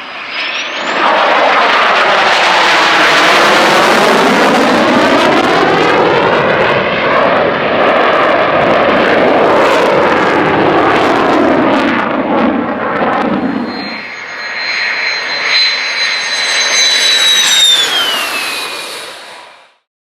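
F-16 fighter jet's engine, a loud steady jet roar with the sweeping, phasing quality of a low fast pass. Near the end a high turbine whine drops sharply in pitch as the jet goes by, then the sound cuts off.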